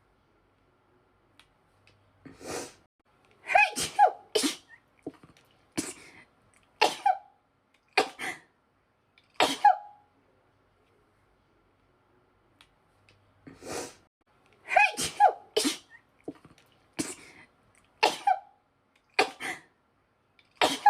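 A woman's sneezing fit: a run of about seven sneezes, the first three in quick succession and the rest about a second apart. After a pause of about three seconds the same run of sneezes comes round again.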